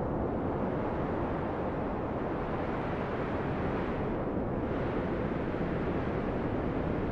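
Steady wind noise rushing and buffeting on the microphone.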